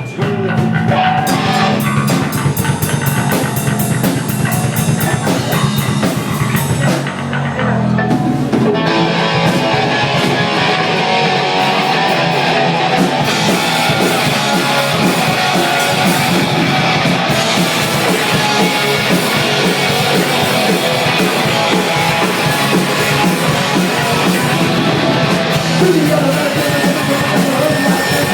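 Rock band playing live and loud: electric guitar and drum kit with some singing, the full band dropping back briefly about seven seconds in before coming in again.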